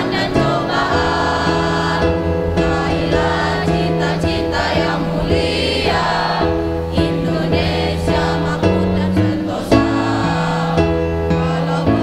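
Large mixed choir singing an Indonesian patriotic song, accompanied by an electronic keyboard, with long held notes.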